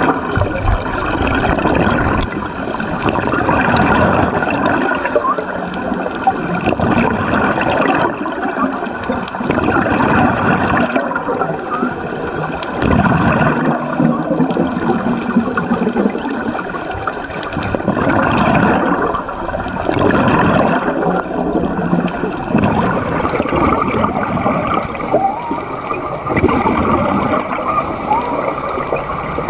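Scuba divers' exhaled bubbles gurgling and rushing up from their regulators, heard underwater, swelling and fading every few seconds with each breath out.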